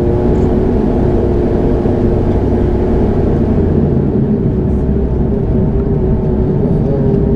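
Cabin noise of a Bombardier Dash 8 Q400 turboprop heard from a seat by the wing: a steady drone from the engines and propellers, with a held humming tone over a low rumble. It is the constant buzz that is likened to a lawn mower.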